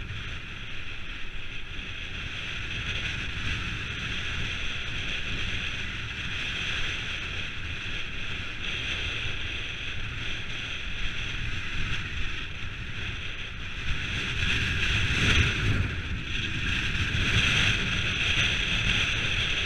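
Wind buffeting a handlebar-mounted camera's microphone over the low rumble of mountain bike tyres rolling along a grass and dirt track. It gets somewhat louder about three-quarters of the way through.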